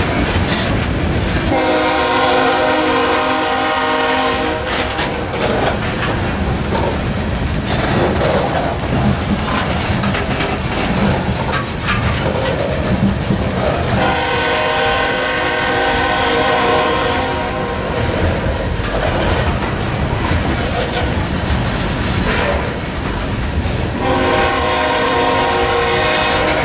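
Loaded coal cars rolling past, a steady rumble with the clickety-clack of wheels over the rail joints. Over it a train horn sounds three long blasts, about ten seconds apart.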